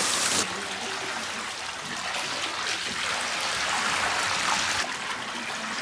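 Water from a hose pouring into a plastic paddling pool, a steady splashing rush of water. It drops suddenly in level about half a second in, swells again for a while and drops once more near the end.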